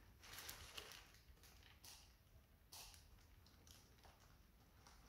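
Faint rustling and crinkling of a plastic biohazard bag being twisted shut by hand: a handful of short crinkles over otherwise near silence.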